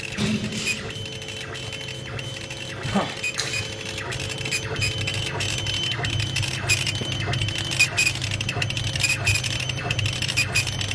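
4060 laser engraver rastering text into a wooden board: the laser head shuttles back and forth on its gantry with rapid, irregular clicking, over a steady machine hum.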